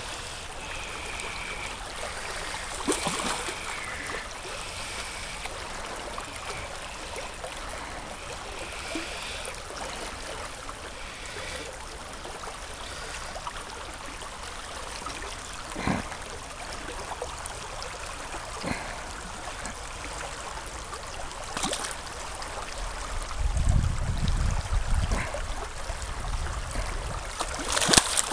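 Shallow stream running over flat bedrock, a steady rushing trickle. A few sharp knocks stand out, and a low rumble comes in near the end.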